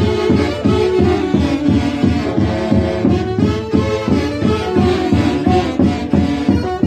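Live Andean orquesta típica playing a fast, rhythmic festive tune, with a strong repeating low line under the melody instruments.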